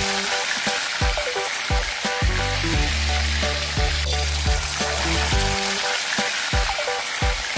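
Garlic-pepper marinated chicken pieces sizzling steadily in hot oil in a wok, under background music with a bass line.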